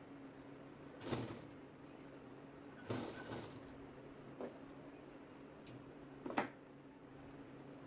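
Faint handling noises from sewing work: four separate soft swishes and knocks as cloth and lace are moved and worked, the last one sharper, over a steady low hum.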